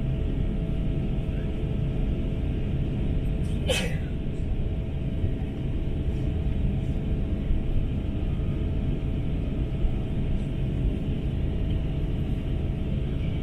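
Airbus A350-900 cabin noise: a steady low rumble of engines and airflow with a faint steady hum. A single sharp knock comes about four seconds in.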